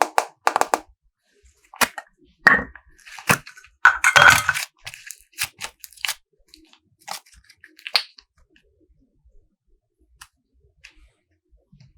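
Toy slime being handled by hand: irregular sharp clicks and crackles. They cluster most densely around four seconds in and thin out to a few faint ticks after about eight seconds.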